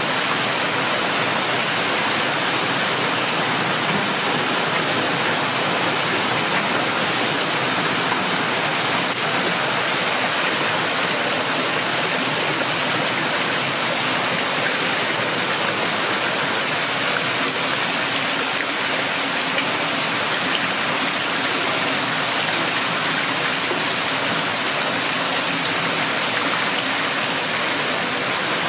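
Steady rush of water flowing through a fish grader and counter's hoses and pouring out of a flexible hose into a perforated basket over a bucket.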